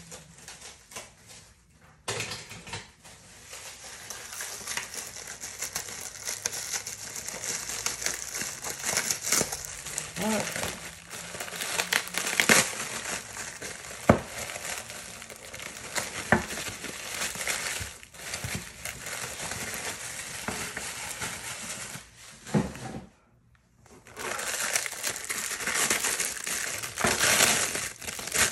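Clear plastic bubble wrap crinkling and rustling as it is handled and pulled off a clear acrylic letter holder, with a few sharp clicks. It starts about two seconds in and stops briefly once near the end.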